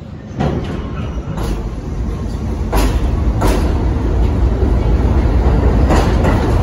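R32 subway train pulling out of the station. It starts moving about half a second in and grows louder as it picks up speed: a deep rumble with several sharp clacks from the wheels on the rails.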